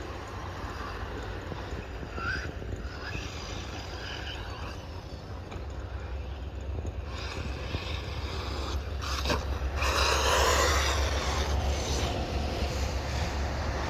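1/8-scale RC buggy driving around a dirt off-road track, its motor rising and falling as it is driven. It is loudest and closest about ten seconds in. A steady low rumble runs underneath.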